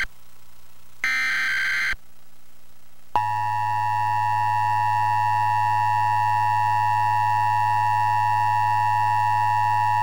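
Emergency Alert System tones: a one-second digital data burst of the SAME header, then about three seconds in the steady two-tone EAS attention signal starts and holds, with a low hum under it.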